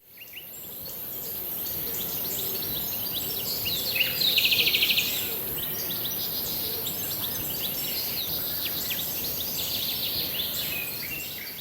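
Birdsong: several small birds chirping, with a fast buzzy trill about four seconds in, over a steady hiss. It fades in at the start.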